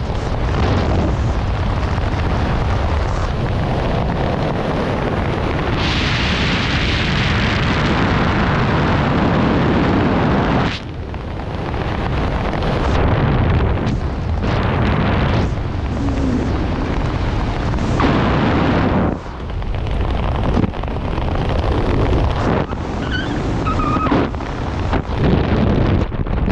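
Loud wind rushing over the microphone of a skydiver in freefall. About eleven seconds in it drops out briefly, then turns uneven and gusty with several short dips as the parachute opens and the fall slows.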